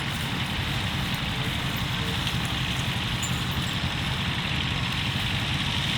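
An engine running steadily at low revs, with a constant hiss over it.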